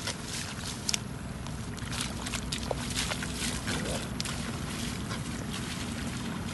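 Feet splashing and sloshing through shallow muddy water, a quick irregular run of wet splashy steps, over a steady low rumble.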